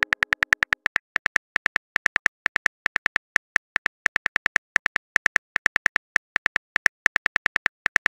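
Smartphone on-screen keyboard typing clicks: a rapid run of short, sharp key clicks at about six a second with a few brief pauses, as a message is typed out.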